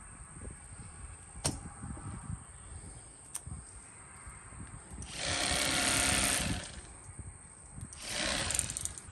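Electric fillet knife running in two short bursts as it cuts crappie fillets. The first burst starts about five seconds in and lasts nearly two seconds; the second, shorter one comes near the end.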